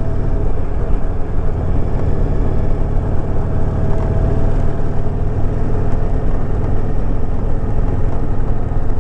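Honda VTX 1300's V-twin engine running at a steady cruise, heard from the bike with a steady rush of wind noise.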